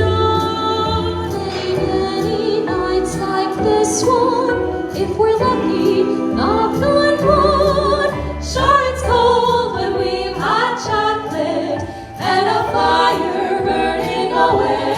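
Vocal group singing a slow Christmas song in close harmony over backing music, sustained notes with vibrato.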